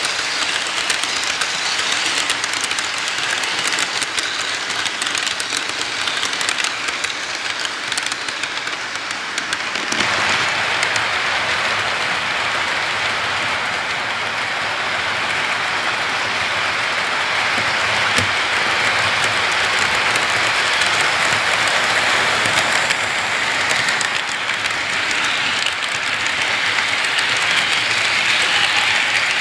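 Model freight train rolling past on the layout track: a steady rushing clatter of wheels on rails. About ten seconds in the sound becomes stronger and hissier.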